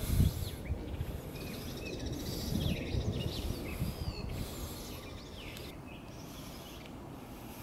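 Small birds chirping and calling in short, gliding notes over a low, uneven outdoor rumble that eases off after about four seconds.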